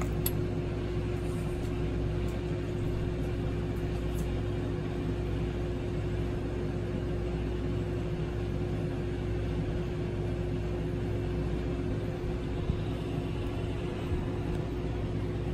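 A steady low machine hum with a constant droning tone, unchanging throughout.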